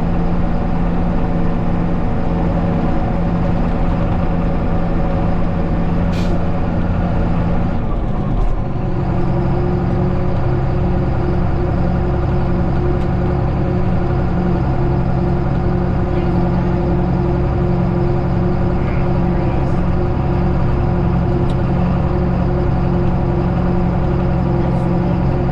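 Farm vehicle engine running steadily; about eight seconds in, the engine note changes and settles on a lower steady pitch.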